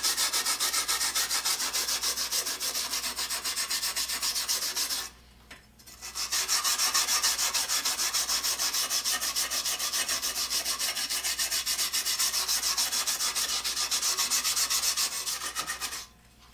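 Hand wire brush scrubbing vinegar-softened rust off a carbide-tipped circular saw blade in quick, even back-and-forth strokes. The scrubbing stops for about a second about five seconds in, then stops again near the end.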